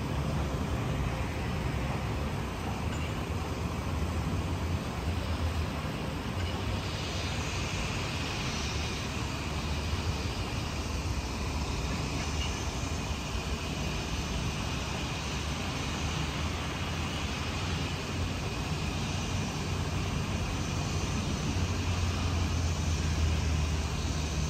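Steady low rumble of road traffic with a faint hiss above it, without distinct events.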